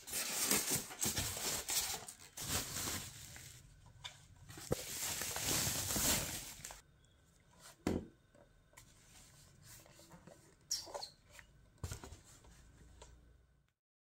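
Unboxing handling noise: hands rustling and scraping styrofoam packing and plastic wrap for the first several seconds. It then goes quieter, with a few sharp knocks as a small speaker unit is lifted and turned over. The sound cuts off just before the end.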